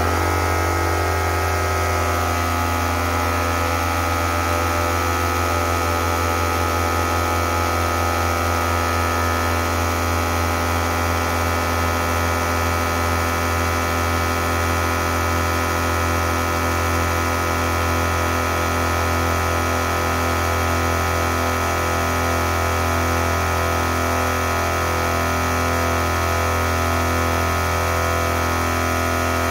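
Two 12-volt piston air compressors, one of them an All-Top 150 psi onboard unit, running together at full load to fill 2-gallon air tanks from zero. The sound is loud and steady, a motor-and-pump hum over a strong low drone.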